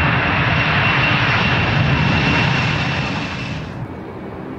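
Boeing 747-400 jet engines running at takeoff power as the airliner lifts off: a loud, steady roar with a high whine through it. It cuts off abruptly near the end and gives way to a quieter, lower engine sound with a faint steady hum.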